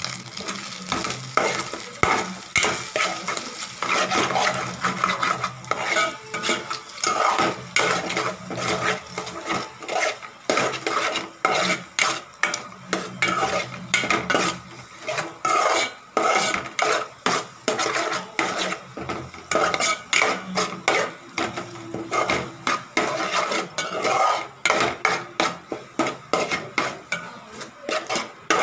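Metal spoon scraping and stirring scrambled egg in a steel pan, with quick repeated scrapes about twice a second over a light sizzle of frying.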